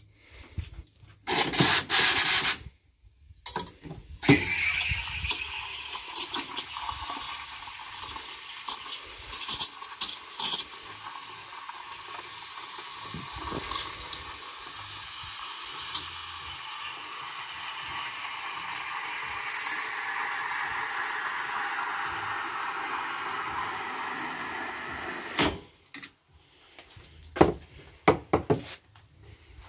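Espresso machine steam wand steaming milk in a stainless steel pitcher. A short loud blast of steam comes first, then after a brief pause a steady hiss with occasional sharp chirps, its pitch slowly sinking, until it cuts off about 25 seconds in. A few light knocks follow near the end.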